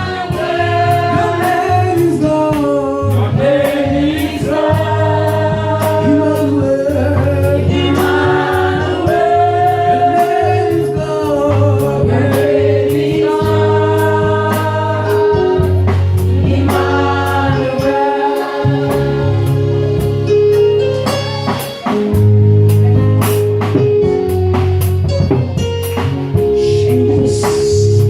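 Gospel worship music: voices singing a melody over a band with sustained bass notes and a steady drum beat.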